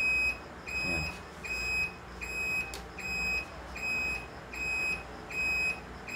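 Motorcycle turn-signal beeper sounding a steady high-pitched beep, about one and a third beeps a second, in time with the flashing signal lights.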